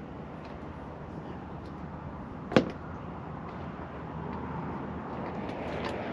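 A single sharp knock about two and a half seconds in, over a steady background rumble that grows slightly louder near the end.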